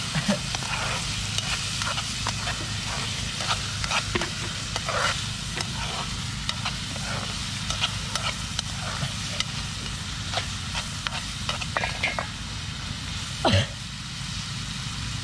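Food frying in a pan with a steady sizzle, while a utensil stirs and scrapes against the pan in irregular clicks and scrapes. One louder scrape with a falling pitch comes near the end.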